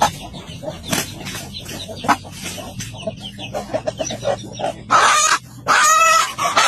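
Hen squawking and clucking in alarm as she attacks an intruder to defend her chicks: rapid short clucks midway, then loud drawn-out squawks in the last two seconds. A few sharp knocks from the scuffle come in the first two seconds.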